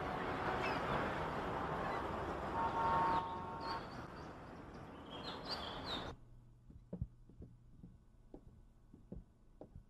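Waterfront city ambience: a steady wash of background noise with seagulls crying in short high calls. It cuts off suddenly about six seconds in, leaving a quiet room with a few faint taps and knocks.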